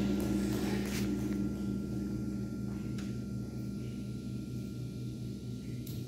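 A high school band's last chord and percussion ringing out and fading away in a large hall, leaving only a faint low steady hum.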